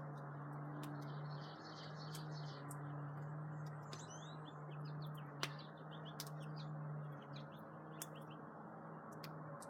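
Small birds chirping over the steady hum of a power sander running somewhere nearby. A few sharp crackles from the campfire, the loudest about halfway through.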